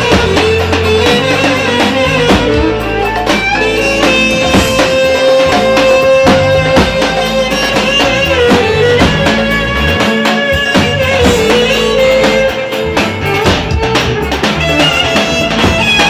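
Loud Roman havası dance music: a held, bending melody line over fast, dense drumming.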